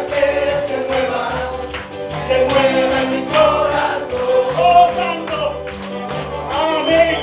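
Gospel music with group singing, a tambourine and a steady bass beat.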